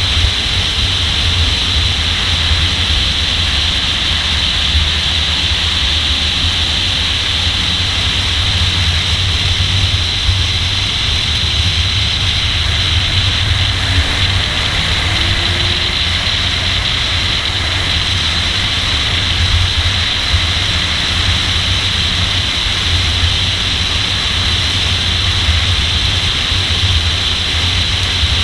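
Steady wind rush and low rumble picked up by a camera mounted on the hood of a Nissan Z driven at speed, with no distinct revving standing out.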